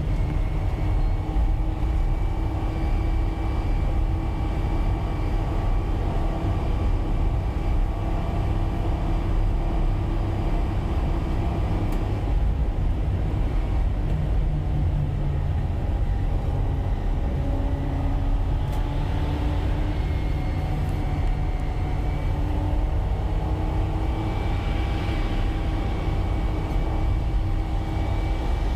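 Steady low rumble of a car's engine and tyre noise heard from inside the cabin while driving at highway speed, with a faint engine hum that shifts pitch a little partway through.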